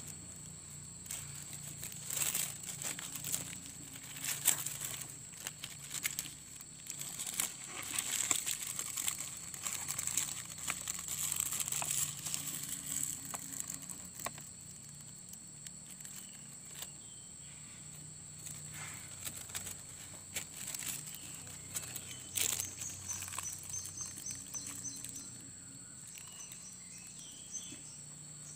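Plastic grafting tape crinkling and crackling as it is stretched and wrapped around a seedling's graft joint. The crackling is busiest in the first half and sparser later.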